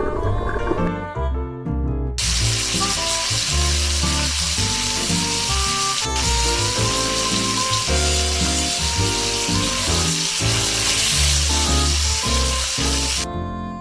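Background music with a steady sizzle of food frying laid over it, starting suddenly about two seconds in and cutting off near the end.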